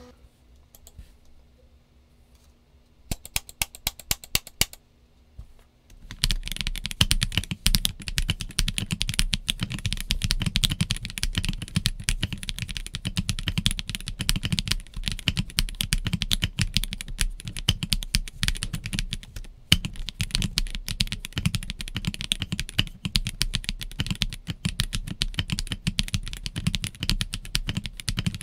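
Typing on the stock Kit Adam R2, a Lego-brick mechanical keyboard with S² linear switches and white/grey OEM-profile double-shot PBT keycaps. After a few quiet seconds comes a short run of keystrokes, then steady continuous typing from about six seconds in.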